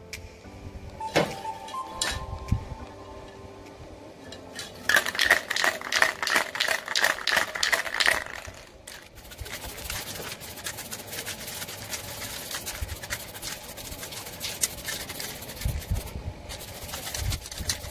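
Aerosol spray-paint can shaken hard, its mixing ball rattling in quick, even strokes for about three seconds. Then paint is sprayed in a long, steady hiss that runs nearly to the end.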